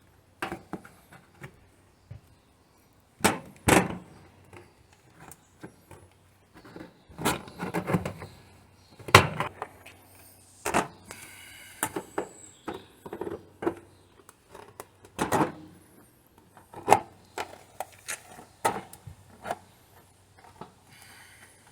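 Irregular knocks, clunks and scrapes of hand work on sheet panels in a workshop, with a short stretch of scraping about halfway through.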